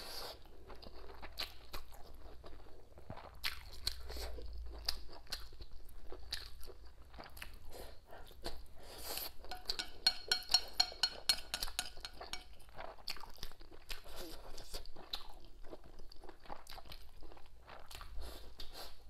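Close-miked chewing and crunching of a mouthful of rice with preserved mustard greens and braised pork belly, with mouth clicks throughout. About ten seconds in comes a quick run of sharp clicks.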